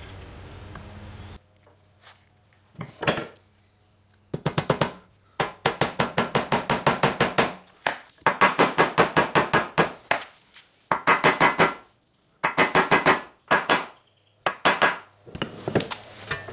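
A small hammer tapping a brass pin down into a wooden saw handle: quick runs of sharp taps, about five a second, broken by short pauses.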